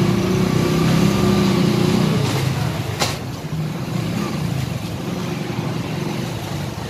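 Motorcycle engines running steadily while riding in a line of motorcycles, the engine sound easing a little after about two seconds. A single sharp click about three seconds in.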